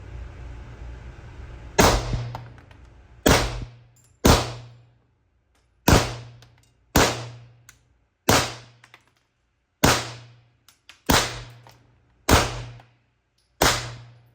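Suppressed Beretta M9 9mm pistol fired ten times at a steady pace, about one shot every second and a half, each shot a sharp report with a short ringing tail.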